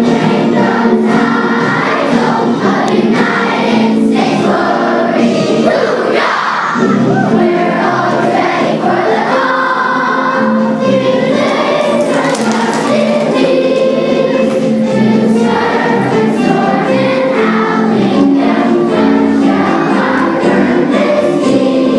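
A large group of schoolchildren singing a song together, loud and continuous.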